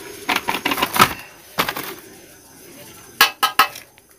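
Plastic packet of gulab jamun mix crinkling as it is shaken and tapped out onto a steel plate, with irregular clicks and crackles. Three quick sharp crackles come a little after three seconds in.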